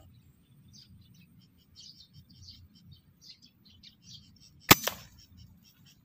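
Small birds chirping repeatedly in the tree, and about four and a half seconds in an air rifle fires with a single sharp crack, followed a moment later by a second, smaller crack.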